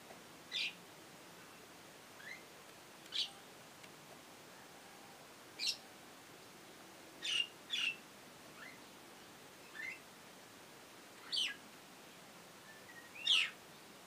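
Common myna calling: a scattered run of about ten short, sharp, high notes, several of them sweeping down in pitch, with a loud note near the end.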